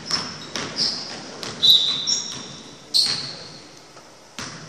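Sneakers squeaking sharply on a hardwood gym floor several times, with a basketball bouncing and players' footfalls, all echoing in a large gym. The loudest squeak comes a little under two seconds in.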